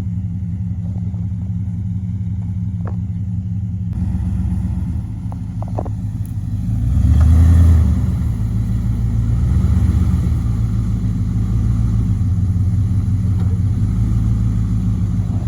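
1998 Dodge Ram 1500's 5.2 Magnum V8, fitted with headers, an H-pipe and a full exhaust, running at low revs off-road. It swells under throttle about seven seconds in and again around ten seconds, with a few light knocks and rattles early on.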